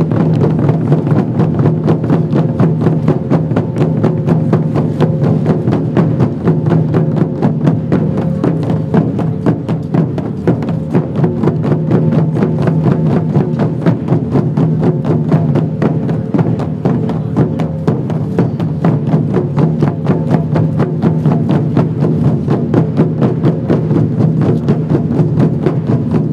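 Chinese barrel drums and a woodblock-like percussion playing a steady, fast run of sharp strikes over sustained backing music. This is the drum accompaniment for a group movement routine.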